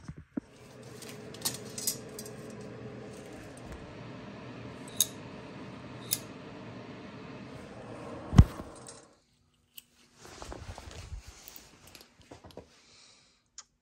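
Small metal clinks and clicks from hand tools and steel brake-line fittings being handled, over a steady hum. One sharp knock about eight seconds in is the loudest sound. The hum stops about a second later, and a few more clinks follow.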